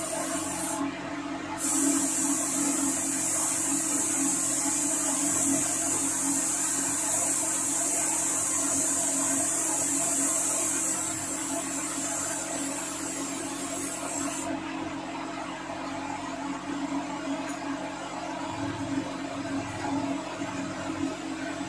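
Gravity-feed paint spray gun hissing as it sprays: it stops briefly about a second in, then sprays steadily for about thirteen seconds and stops for the last seven or so. A motor hums steadily underneath throughout.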